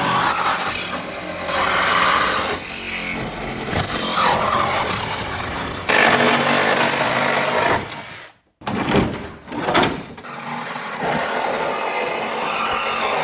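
Bosch reciprocating saw running under load, its level rising and falling as it cuts; it stops abruptly about eight and a half seconds in, then comes back in two short surges before running steadily again.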